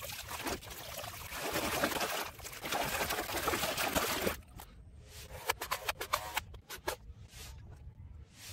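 A hand splashing and churning muddy water in a plastic tub for about four seconds. After that the water stops and a few sharp clicks and knocks follow, from plastic toy guns being handled.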